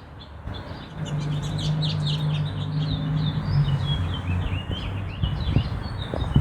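Small songbirds chirping in a quick, jumbled run of notes. A steady low hum sits underneath from about a second in, and there are two short knocks near the end.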